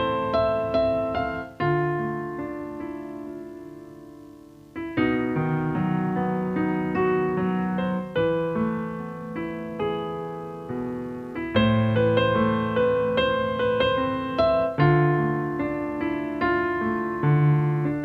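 Background piano music: notes and chords struck and left to ring, with one chord fading out for a few seconds before the playing picks up again.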